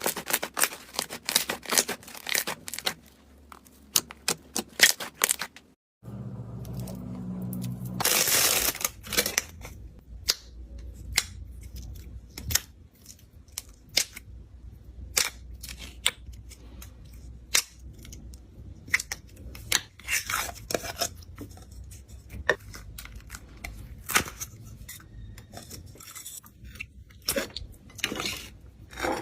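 Slime being handled and squeezed by hand, giving rapid crackling clicks and pops. About six seconds in there is a cut to another clip, where the clicks go on over a low steady hum, with a short, louder crunching rustle about two seconds after the cut.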